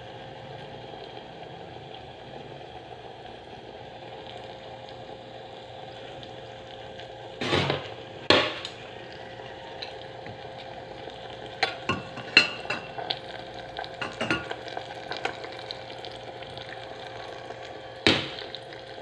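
Sliced bananas frying in oil in a small electric pot, a steady sizzle throughout. Sharp clicks and knocks of a utensil against the pot come in between: two loud ones a little before halfway, a run of smaller ones a few seconds later, and one more near the end.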